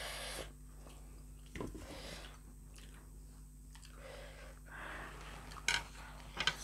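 Close-up chewing of soft, spicy instant noodles, with a few sharp clicks of cutlery against a plate near the end.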